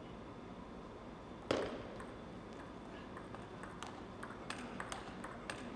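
Table tennis rally: the plastic ball clicking off the table and the rubber bats, a few hits a second, starting about three seconds in. One loud thump comes about a second and a half in.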